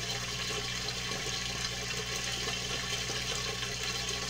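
Steady rushing water with a constant low hum beneath it.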